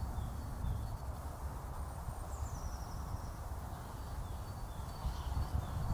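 Wind rumbling on the microphone, with a few faint, short bird chirps and one falling chirp about two seconds in.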